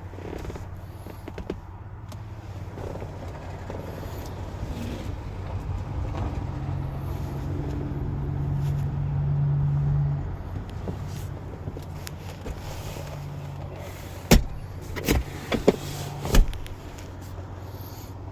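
A steady, low motor hum that grows louder for a few seconds and then drops back, like a vehicle engine running. Near the end come four sharp knocks within about two seconds.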